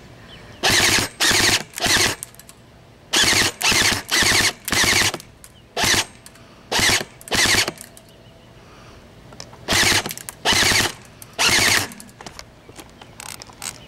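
G&G airsoft gun firing about a dozen short rapid-fire bursts, each under a second and made of a fast rattle of shots, some bursts following straight on from the one before.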